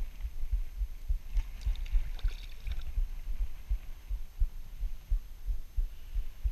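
Low, irregular thumping rumble on a body-worn action camera's microphone, with a few faint light clicks and rustles about one and a half to three seconds in.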